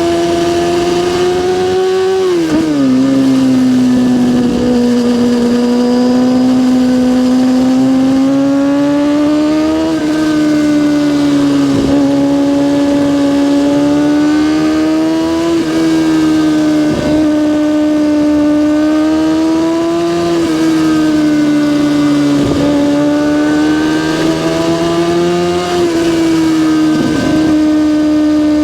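Kawasaki ZX6R inline-four engine running at high revs, its pitch slowly rising and falling, with a drop about two and a half seconds in and several brief breaks in the note.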